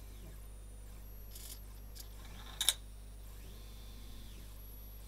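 Small geared stepper motors of a robot arm whining faintly, the pitch rising as they speed up, holding, then falling as they slow down. About two and a half seconds in, two sharp clicks in quick succession.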